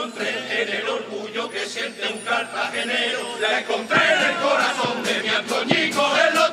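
Chirigota group of men singing together in unison, chant-like, over strummed guitars; it gets louder about two-thirds of the way through.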